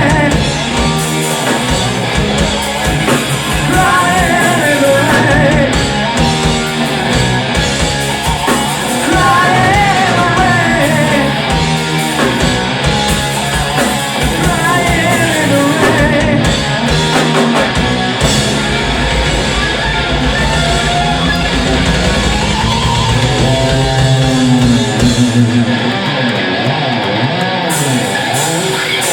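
A rock band playing live, loud and steady: electric guitar, bass and drums, with a melody line bending over the top.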